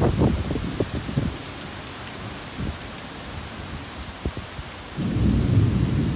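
Heavy rain falling in a thunderstorm: a steady rain hiss, with low rumbling that fades after about a second, and another low rumble of thunder starting about five seconds in.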